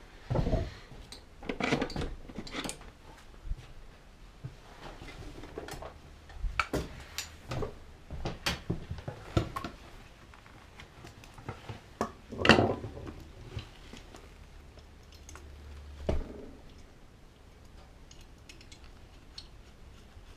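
Irregular clinks and knocks of metal tools and parts being handled, with a faint low hum underneath that cuts off about sixteen seconds in.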